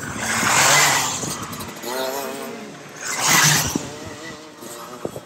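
Two-stroke racing kart engines at speed on track: a loud surge about a second in and another at about three and a half seconds, with engine notes gliding up and down in pitch between them.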